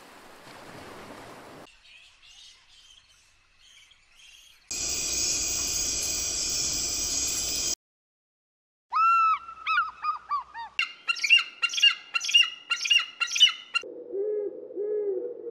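Several animal recordings in turn: water washing at the start, then a loud steady hiss for about three seconds and a short dead silence. Then bald eagles give rapid series of high, thin, chittering calls, about four a second and loudest of all, and near the end a Eurasian eagle-owl gives two low hoots.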